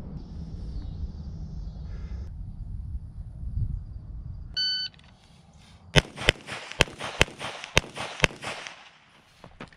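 A low rumbling noise, then a little before halfway a shot timer's short start beep, followed about a second later by a rapid string of about eight shots from a CZ Shadow 2 9mm pistol, mostly in quick pairs.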